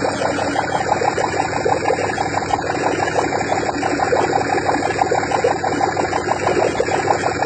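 Modified three-cylinder engine running at a steady speed, its exhaust giving a fast, even pulsing.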